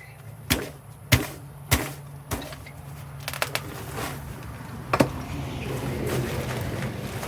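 Sharp knocks, four of them evenly spaced about half a second apart, then a few more scattered ones. After that a steady rushing, scraping noise builds up in the second half.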